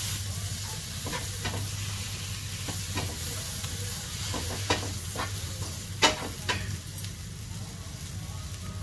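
Spiced masala with chopped tomato sizzling in a nonstick wok while a wooden spatula stirs and scrapes through it. Short knocks of the spatula against the pan come now and then, the loudest about six seconds in.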